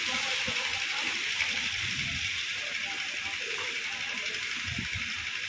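Pressurised water jet from a hose hissing steadily and spattering against a stone shrine as flood silt is washed off.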